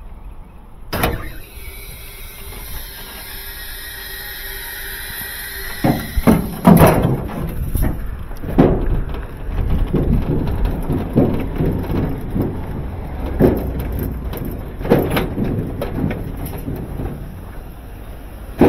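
Knocks, clunks and scraping as a top-load washing machine is handled and moved over a metal deck and concrete. A sharp bang comes about a second in, then a few seconds of steadier whine, then a long string of uneven knocks and rattles.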